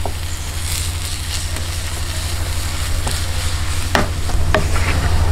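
Flat metal spatula stirring and scraping a thick rice-flour dough around a nonstick frying pan, with light sizzling and two sharp taps of the spatula against the pan near the end. A steady low hum runs underneath.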